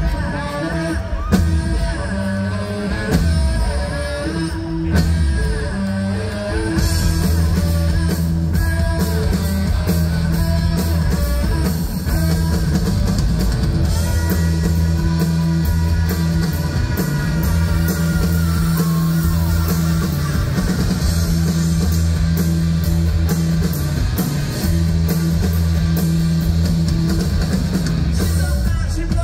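Hard rock band playing live through a large festival PA, heard from the crowd. An electric guitar and bass riff is driven by a drum kit, and the sound fills out about seven seconds in.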